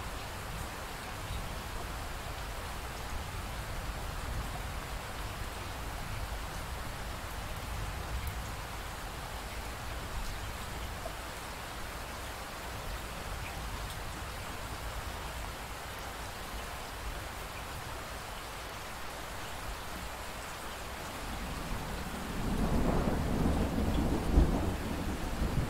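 Steady rain hiss, then about three-quarters of the way through a low rumble of thunder rolls in and keeps building.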